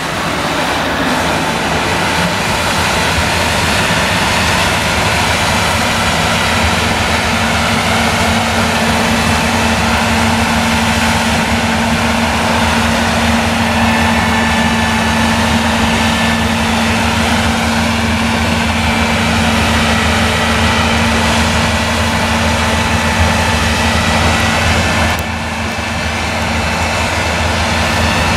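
New Holland CX combine harvester with an eight-row Geringhoff corn header harvesting standing maize: the engine and threshing machinery run under load in a loud, steady drone. A steady hum comes in a few seconds in, and the sound dips briefly near the end.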